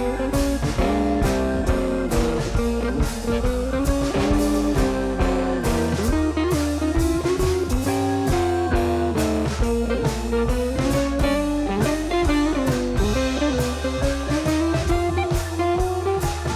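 Background music: an electric guitar melody over bass and drum kit, with a steady beat.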